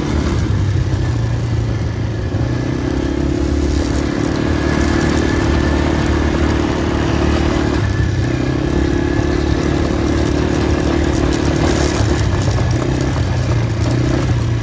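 ATV engine running under throttle as the quad is ridden over sand, with a steady engine note that dips briefly about eight and twelve seconds in as the throttle is eased and opened again.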